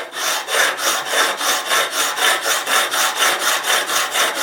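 Fine-grit sharpening stone on a guided sharpener stroked rapidly back and forth across a vegetable peeler's blade bevel, about five strokes a second, the stone rasping on the steel. The strokes stop abruptly near the end.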